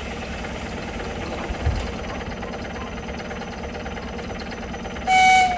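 Electric commuter train standing at a platform with a steady low hum from its equipment. About five seconds in, a short, loud horn blast at one high pitch: the train's signal that it is about to depart.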